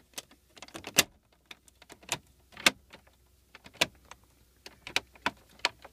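Irregular sharp plastic clicks and taps as stiff plastic cards are slid and pulled against the center console's cup-holder trim, a dozen or so, a few of them louder.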